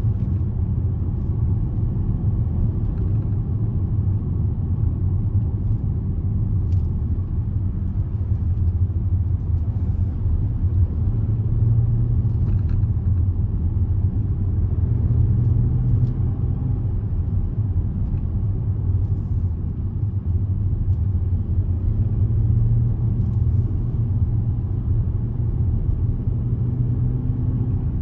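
Steady low rumble of tyre, road and engine noise inside a Range Rover's cabin while driving at road speed, swelling slightly a few times.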